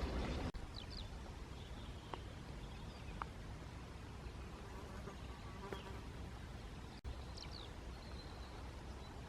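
Quiet rural meadow ambience: a steady low rumble with a few faint, short, high bird chirps scattered through it. The sound cuts out abruptly twice.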